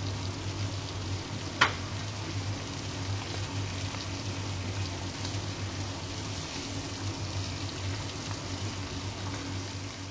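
Garfish fillets sizzling in a frying pan, a steady hiss over a low steady hum, with one sharp click about a second and a half in.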